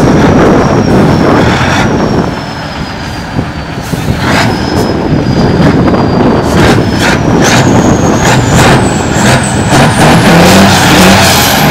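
Tatra 815 trial truck's diesel engine running loud, easing off about two seconds in and then pulling hard again. A thin high whistle slowly falls, then rises with the revs near the end, and several short sharp noises come through it.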